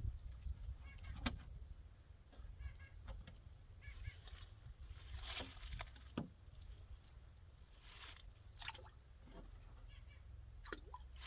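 Scattered sharp clicks and scrapes from cleaning fish with a knife on a table, with faint short bird calls in the first few seconds.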